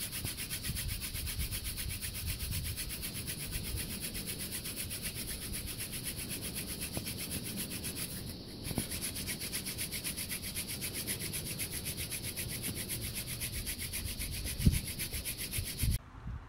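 Fire-by-friction hand drill: a New England aster spindle spun back and forth between the palms, its tip grinding into a smoking wooden hearth board as friction builds toward an ember. Fast, even rubbing strokes with a brief break about eight seconds in, cutting off suddenly near the end.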